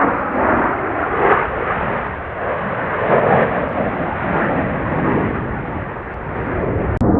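Jet engine noise from Blue Angels F/A-18 Super Hornets in flight, swelling and fading, then cutting off abruptly just before the end into a lower, steadier rumble.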